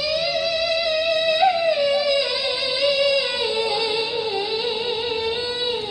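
A young woman's voice chanting Qur'an recitation (tilawah) through a microphone and loudspeaker, in one long ornamented phrase. The note is held and wavering at first, then slides down in steps from about halfway through.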